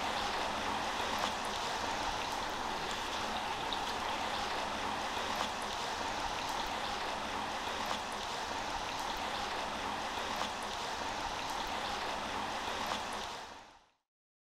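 Shallow creek water running over rocks below a culvert, a steady rush with faint ticks and splashes in it. It fades out near the end.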